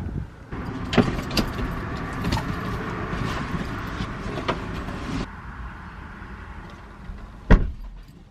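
Knocks and clatter of things being handled in and around a car, which stop abruptly about five seconds in; then one loud thump near the end, typical of a car door shutting.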